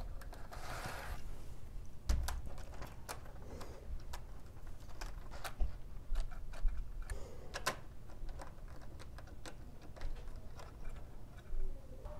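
Light, irregular plastic clicks and taps of HO scale freight cars being set down on the rails and coupled together by hand.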